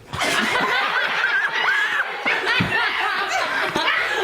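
Several people laughing loudly together.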